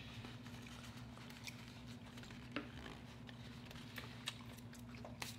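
Faint eating sounds: quiet chewing and a few small, sharp clicks of food being handled at the table, over a low steady hum.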